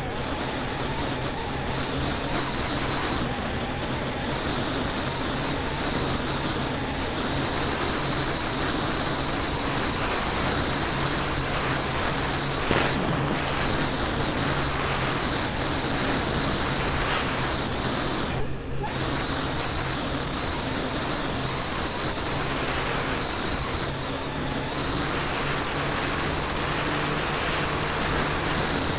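Snowmobile running steadily along a trail: a continuous engine and track drone with a high whine that wavers slightly, one sharp knock near the middle and a brief dip a few seconds later.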